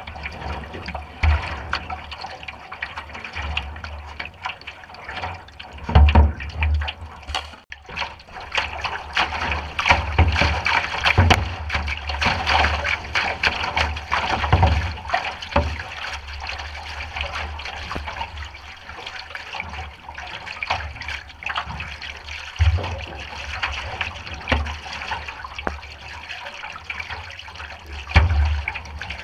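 River water splashing and rushing along a canoe's hull, a steady wash with irregular low thumps.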